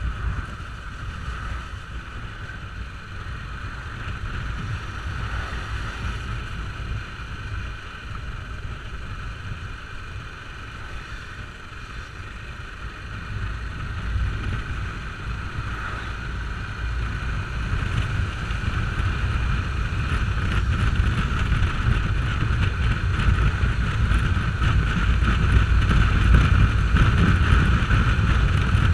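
Wind rushing over the microphone of a motorcycle-mounted camera at road speed, over the low, steady drone of the ride. It grows louder through the second half.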